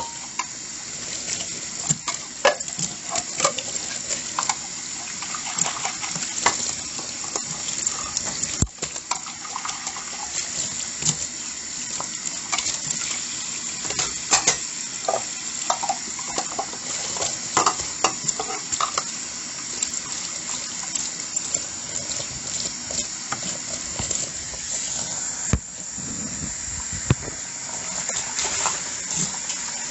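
Dishes being washed by hand at a sink: a steady hiss of water with frequent clinks and knocks of dishes and utensils.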